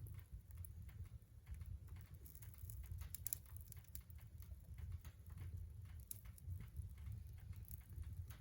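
Wood fire in a fireplace crackling: irregular sharp pops and ticks over a low steady rumble.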